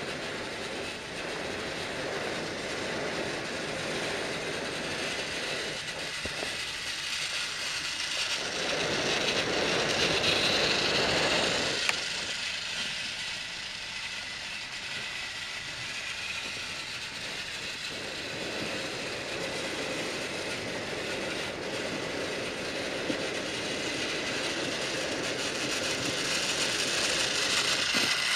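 Motorized TrackMaster toy train engines whirring along plastic track, a steady buzz of small gear motors with the wheels rattling over the track joints. It swells louder about ten seconds in and again near the end, with one sharp click a little after the first swell.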